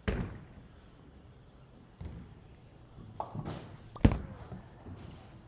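Hammer Deep Ocean Vibe bowling ball landing on the lane with a thud and rolling. About three to four seconds in it crashes into the pins, a clatter of several hits, one sharp and loud.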